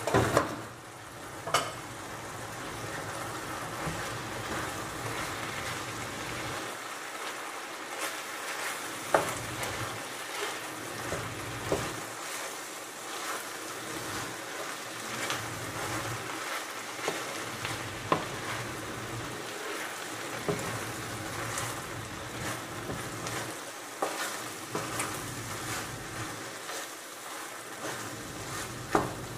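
Bulgur mixed with vegetable and tomato sauce sizzling steadily in a frying pan as it is stirred with a spatula. Sharp knocks and scrapes of the spatula against the pan come every few seconds.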